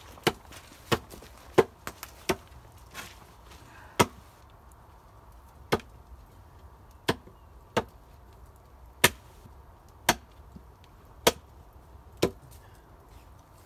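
Wood being chopped: about fourteen sharp, separate strikes, close together at first and then roughly one every second or so, stopping about 12 seconds in.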